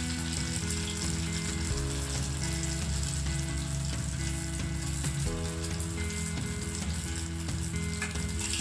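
Athirasam batter of ground rice, sugar and banana deep-frying in hot oil in a kadai: a steady sizzle of bubbling oil around the round cake as it puffs up.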